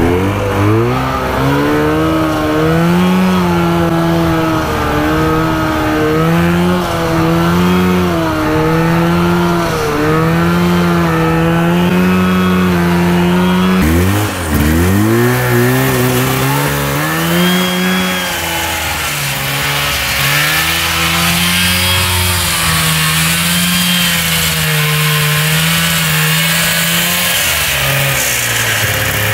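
PPT mini tank's 400cc two-stroke engine running hard as the machine is driven, its pitch rising and falling with the throttle. About halfway through, the revs drop sharply and then climb back up. The engine runs consistently, its ignition points freshly cleaned and adjusted.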